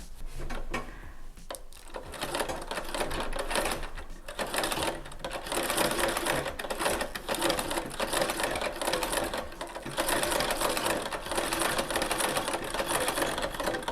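Vintage Singer 128K treadle sewing machine stitching: a fast, even clatter of needle and shuttle strokes, slowing and pausing briefly a few times as the foot works the treadle.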